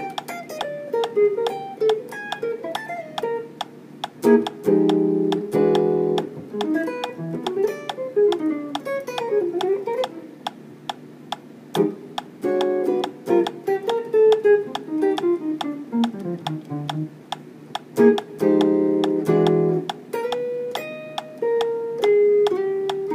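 Hollow-body electric guitar played solo with a pick: quick single-note lines climbing and falling through the middle range, broken now and then by short strummed chords.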